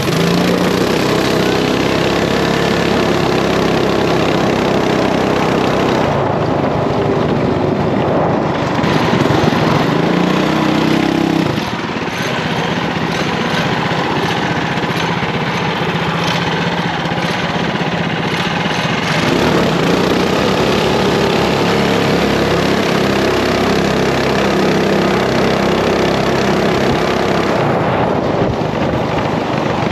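Small single-cylinder mini bike engine running hard, its pitch rising and falling several times as the throttle opens and closes.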